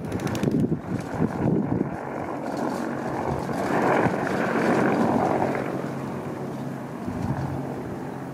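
Bell 214B waterbomber helicopter passing overhead: its single turbine and two-bladed rotor give a steady low drone. It is loudest about halfway through, then fades as it flies away.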